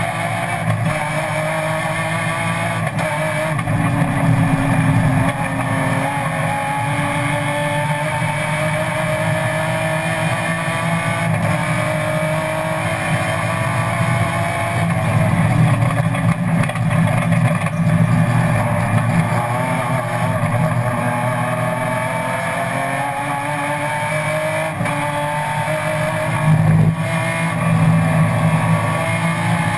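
BMW M3 race car's engine heard from inside its cockpit, accelerating hard under racing load. Its pitch climbs steadily through each gear and drops back at each gear change, several times over.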